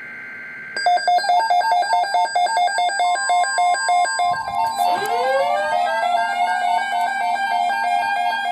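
Emergency alert tones on a weather radio broadcast. About a second in, a fast warbling two-note electronic alarm starts. About three seconds in, a steady single alert tone joins it. Around four to five seconds in, rising siren-like sweeps begin and level off.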